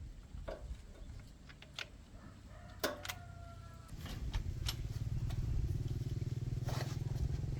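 A tricycle's small engine is running low with a few metal clinks and one ringing metal knock. About four seconds in it picks up to a louder, steady, fast-pulsing run.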